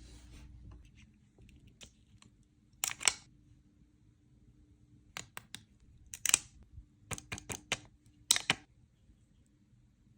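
Hands handling a toy doll and its plastic packaging. A series of sharp clicks and taps comes in small clusters, with three short crinkly rustles about three, six and eight seconds in.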